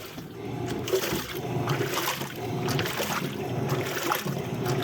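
LG Turbo Drum top-load washing machine agitating in its wash cycle: water sloshing and churning in the drum over a low motor hum. No knocking can be heard; the newly replaced transmission is running cleanly.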